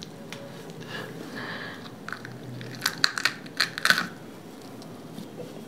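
Crunching of a bite into a whole raw cauliflower head: a cluster of sharp, crisp cracks as the florets break, about two to four seconds in.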